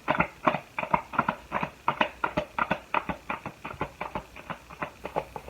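Tarot cards being handled and shuffled: a quick, irregular run of light card snaps and taps, about five a second, thinning out near the end.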